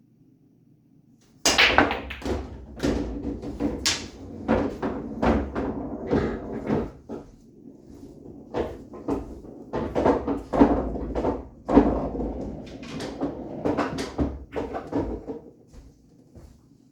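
Pool balls on a bar-box table clacking sharply and repeatedly against one another and the table, with a low rumble of balls rolling underneath. The clacking starts suddenly with a loud hit about a second and a half in, comes in irregular flurries with another hard hit later on, and thins out near the end.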